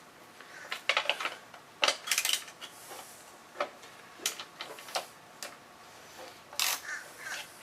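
Metal hand tools clicking and clinking against bolts and washers, in irregular clusters of sharp clicks, as a fender bolt is worked loose with a ratchet and wrench.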